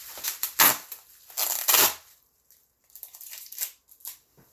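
Packing material from a shipping box being handled: irregular bursts of crinkling and tearing. The loudest bursts come about half a second in and again around one and a half seconds in, with lighter rustles near the end.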